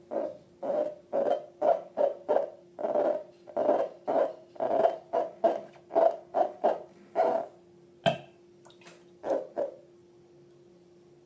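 Slime being squeezed and kneaded by hand, making a quick, regular run of hollow squelches about two to three a second. A sharp click follows about eight seconds in, then a few more squelches.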